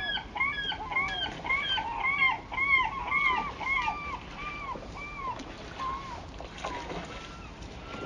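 A bird calling in a long series of short arched calls, about three a second at first, then slowing and fading from about four seconds in. Under it runs the steady rush of a waterfall.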